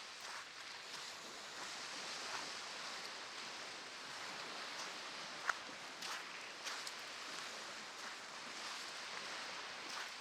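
Ocean surf washing steadily on a beach, with scattered soft crunching footsteps on sand and one sharp click about halfway through.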